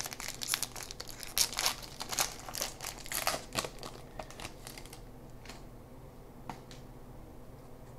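Baseball card pack wrapper crinkling and tearing as it is opened by hand. The dense crackling stops about five seconds in, leaving only a few faint rustles.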